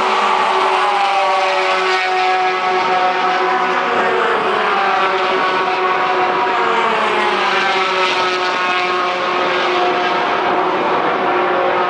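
Racing pickup trucks' engines running at speed as the field laps the circuit, several engine notes overlapping and rising and falling in pitch as trucks pass and pull away.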